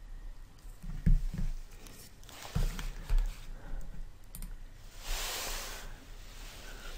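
Faint desk and computer-mouse handling noises: a few low knocks and light clicks in the first half, then a short hiss about five seconds in.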